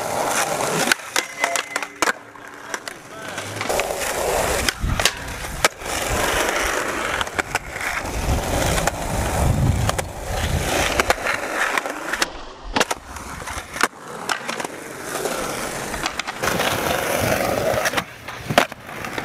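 Skateboard wheels rolling over smooth concrete, swelling and fading as the board passes, broken by many sharp clacks of the tail popping and the board landing as trick after trick is tried.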